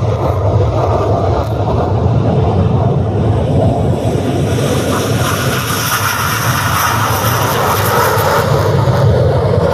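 Black Eagles KAI T-50B jet trainers, each with a single turbofan, taking off in formation under full power: a loud, continuous jet roar that sharpens in tone about halfway through as the jets get airborne.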